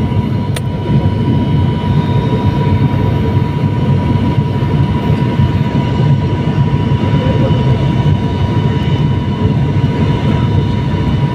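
Steady engine and airflow noise inside the passenger cabin of a high-wing turboprop airliner on final approach and landing roll. A constant high whine sits over a low hum.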